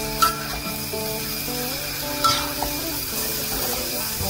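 A metal spatula scraping and knocking around a wok while a nearly dry stir-fry of chopped intestines and leaves cooks, with a light sizzle and two sharp metal clanks about two seconds apart.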